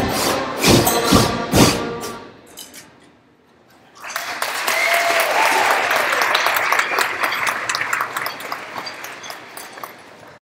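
A beginning school concert band plays its last few loud accented chords with drums, which ring out in the gymnasium and die away. About four seconds in, the audience starts applauding, the clapping thinning toward the end.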